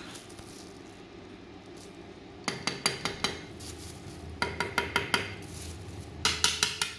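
Hard plastic card slab cases clicking and clattering against each other in three quick runs of about six sharp clicks each, over a low machine hum.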